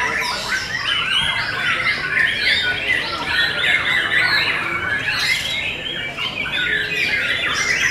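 White-rumped shamas singing in a dense, continuous chorus of rapid, overlapping whistled phrases and chattering notes.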